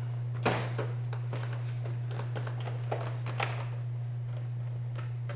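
Door panel retaining clips on a 2003 Chevrolet Monte Carlo door popping loose as the panel is pulled sharply away from the door: several sharp pops, the loudest about half a second in. A steady low hum runs underneath.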